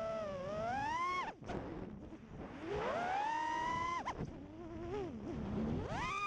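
5-inch FPV quadcopter's EMAX RS2205-S 2300KV brushless motors and props whining, the pitch sliding up and down with the throttle. The pitch falls away sharply about a second in, climbs again to about four seconds in, dips, then rises quickly near the end.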